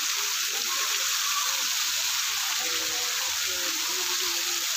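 Fountain jets spraying up from a pond and falling back onto the water in a steady hiss, with faint voices of people underneath.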